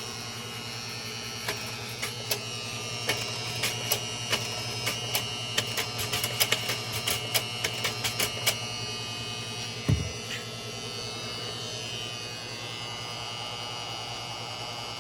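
Kodak Ektagraphic AF-2 slide projector running, its cooling fan giving a steady hum. Over it comes a run of irregular sharp mechanical clicks for several seconds, then a single heavier thump about ten seconds in.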